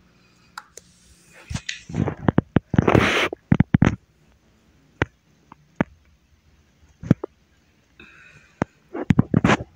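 Handling noise: a run of sharp clicks and knocks with a short rustle about three seconds in, a few single clicks, then another cluster of clicks near the end.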